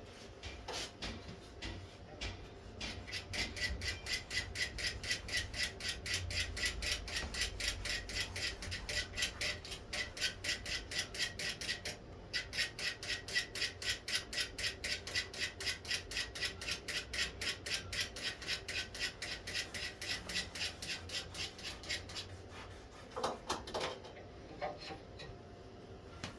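Quick, even back-and-forth rubbing strokes of hand work in a workshop, about four or five strokes a second, with a short pause about halfway. A few knocks come near the end.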